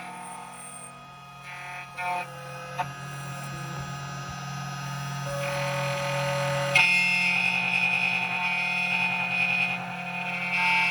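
CNC key-cutting machine running as it cuts a HU66 key blade: a steady motor whine whose tones shift abruptly to new pitches several times as the machine moves through the cut.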